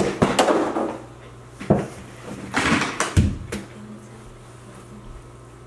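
Scattered thuds and knocks of household things being thrown down, several in quick succession at the start and the strongest a low thump about three seconds in. A faint steady low hum lies underneath.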